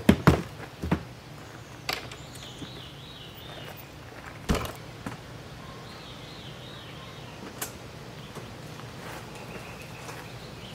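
Several sharp knocks and clunks from handling gear at the camper, three in the first second and one more about halfway. Birds chirp faintly in the surrounding trees between them.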